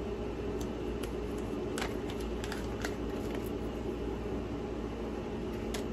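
Light rustling and a few short clicks from small packaged items being handled, most of them in the middle of the stretch, over a steady low background hum.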